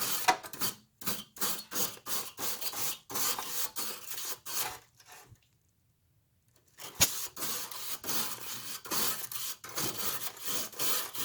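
A coil brush scrubbing across the aluminium fins of a window air conditioner's evaporator coil in quick, repeated scratchy strokes, about two a second, clearing dust from the coil. The strokes stop for about two seconds midway and start again with a sharp click.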